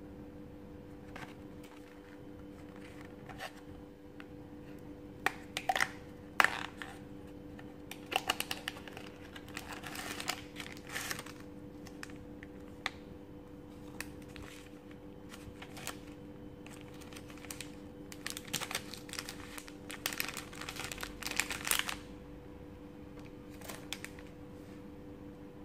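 Hands handling a cardboard snack box and a foil-wrapped cookie packet: scattered clicks and taps of the cardboard, then spells of crinkling foil packaging around the middle and again later on. A steady low hum runs underneath.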